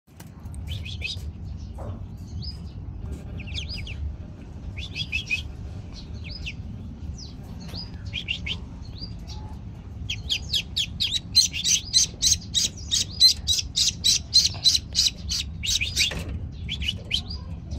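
A group of newly hatched ducklings peeping in short, high chirps. The peeps come scattered at first. About ten seconds in they turn into a fast, louder run of about four peeps a second, which lasts about six seconds.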